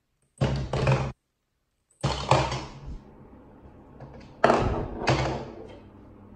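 Plastic ball dropped into a toddler's octopus toy, clattering and thunking through its plastic body, then a plastic shoe on the toy being handled. There are four loud knocks: about half a second in, about two seconds in, and two close together around four and a half and five seconds in, with a faint steady hum between them.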